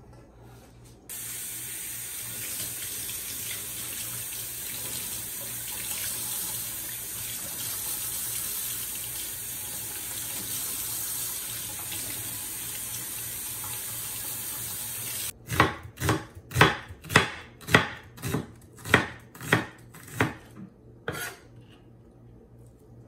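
Kitchen tap running steadily into a stainless steel sink as greens are rinsed under it, stopping abruptly about fifteen seconds in. Then about ten sharp knife strikes on a wooden cutting board, a little under two a second, slicing an onion.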